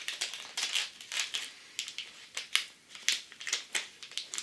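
Packaging being handled during an unboxing: a run of irregular, crisp crinkles and rustles.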